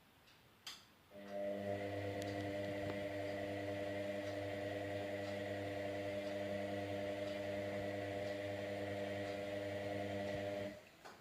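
Indesit Innex washing machine giving a click, then a steady electrical hum that holds one pitch for about nine seconds and cuts off suddenly.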